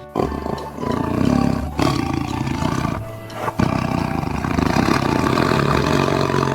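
Tiger roaring and growling in long, loud roars, with a short break about three seconds in.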